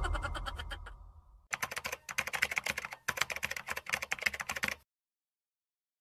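The tail of an intro sound effect fades out, then a rapid run of computer-keyboard typing clicks starts about a second and a half in and lasts about three seconds before cutting off suddenly. It is a typing sound effect laid under on-screen text.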